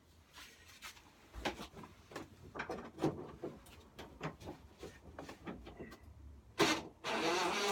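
Hand tool working a bolt loose on a lawnmower's handlebar mount: a series of separate metal clicks and knocks, a louder knock about six and a half seconds in, then a longer rattling scrape near the end as the part comes free.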